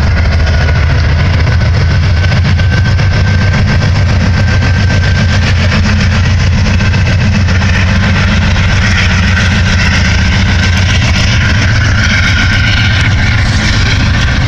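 Heavy diesel engines running with a steady low rumble, as CSX freight locomotives pass under power at the head of a grain train.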